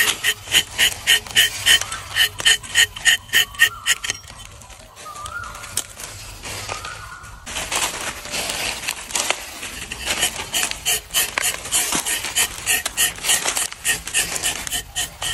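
A rubber-tapping knife shaving a thin strip of bark off rubber trees in quick short strokes: a rhythmic scraping crackle of about four or five strokes a second. It stops for a few seconds partway through and then starts again with a rougher crackle.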